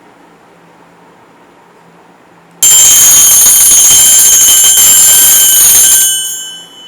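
Homemade 9-volt DC-motor theft alarm going off: a loud, high-pitched metallic ringing starts suddenly about two and a half seconds in and runs for about three and a half seconds. When it stops, a ringing tone lingers and fades away.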